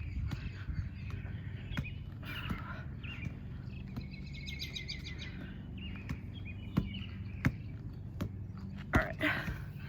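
Soft knocks every second or so as a ball is passed side to side during Russian twists, over a steady low hum, with a brief high chirping trill about four seconds in.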